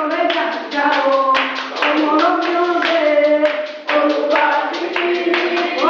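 Singing accompanied by steady rhythmic hand clapping, about two to three claps a second.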